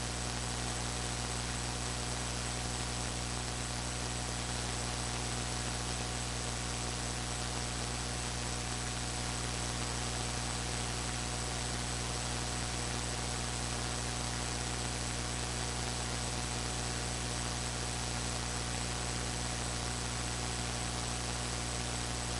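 Steady electrical hiss with a low mains hum and a thin high whine: background noise of the recording setup, with no other sound.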